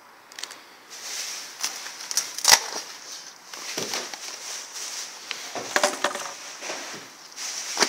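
Rottweiler chewing and tearing at a large chunk of raw veal: irregular chewing clicks and smacks, the loudest about two and a half seconds in.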